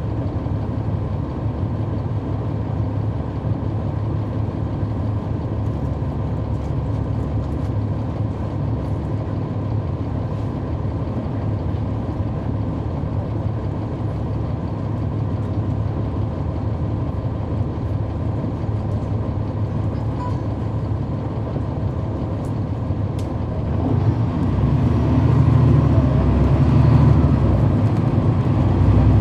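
Inside the cabin of a 2011 NABI 40-SFW transit bus: its Cummins ISL9 diesel engine running steadily, growing louder and fuller near the end as the engine works harder.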